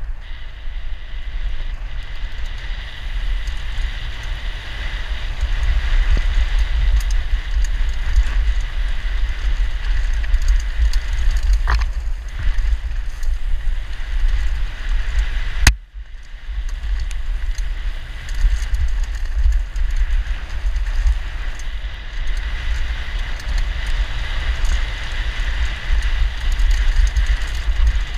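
Downhill mountain bike ridden fast over a loose, rocky trail, heard from a helmet-mounted camera: a steady rush of wind on the microphone with the rattle and crunch of tyres and bike over stones. There is a single sharp click about sixteen seconds in, followed by a brief drop in the noise.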